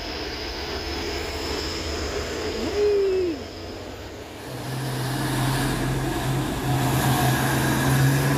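A small car passes, then a heavy container truck's diesel engine drones steadily as the truck climbs past close by. The drone starts about halfway in and gets louder toward the end. There is a short rising-then-falling sound about three seconds in.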